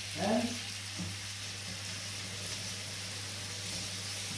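Thin floured, spiced meat slices sizzling steadily in a hot frying pan, with a steady low hum underneath.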